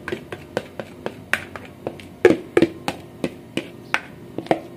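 A series of sharp, irregular clicks and taps, about three or four a second, some with a short dull ring.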